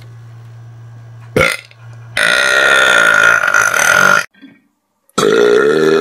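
A man belching loudly: one long belch lasting about two seconds, then after a short pause another long one starts near the end. Before it, a low steady hum and a single sharp knock.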